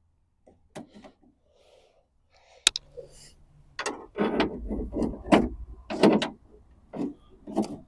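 Plastic clicks, one of them sharp, then a run of clattering knocks and rattles from about four seconds in, as a wiring loom and its clips are pulled free from inside a car door.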